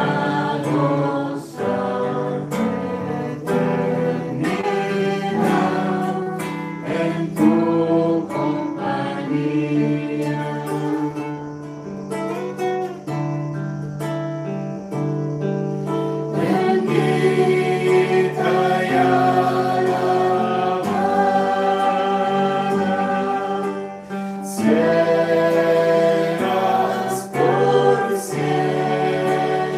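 A devotional hymn sung by voices to a strummed acoustic guitar.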